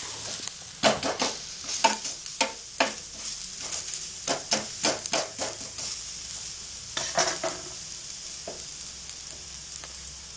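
Rice-flour batter pancake sizzling steadily in oil on a flat pan. A spatula presses and scrapes against the pan in quick irregular taps for the first seven seconds or so, then only the sizzle goes on.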